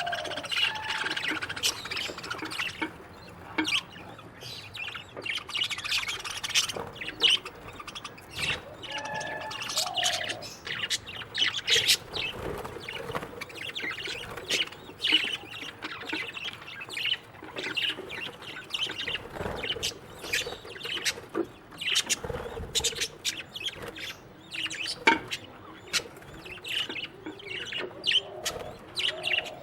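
A colony of budgerigars chattering in a cage: a dense stream of many short, sharp chirps overlapping one another.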